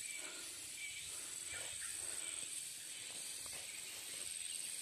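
Insects shrilling steadily in the surrounding forest, a continuous high pulsing tone over a soft outdoor hiss, with a few faint knocks.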